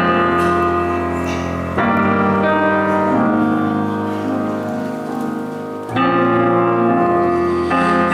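Piano playing the slow introduction of a song: full chords struck and left ringing, with a new one about every two to four seconds.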